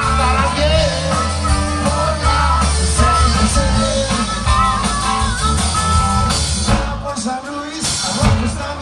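Live rock band playing loud through a club PA: electric guitars with sustained melodic lines over bass and drums. About seven seconds in, the bass drops away and drum hits stand out.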